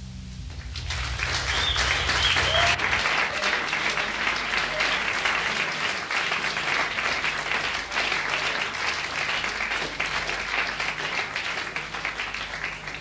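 Audience applauding at the close of a live jazz piece, the clapping swelling about a second in and carrying on, while a low held note from the band dies away under it in the first few seconds.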